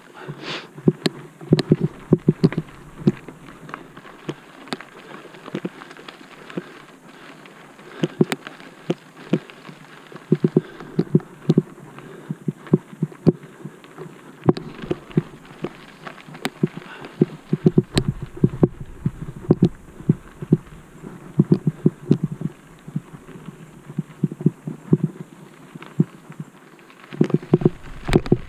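Mountain bike descending a rough dirt trail: clusters of irregular low thumps and rattles as the bike bounces over rocks and ruts, easing off for a few seconds at a time, then heavier near the end.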